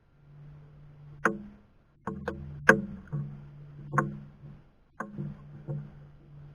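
A series of about nine sharp, irregular knocks with a short hollow ring, the loudest nearly three seconds in, over a steady low hum.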